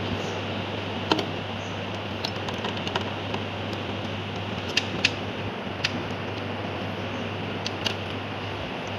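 A few irregular small metallic clicks and taps as a screwdriver and crimped wire lugs work against the terminals of a circuit breaker's auxiliary switch block, over a steady background hum and hiss.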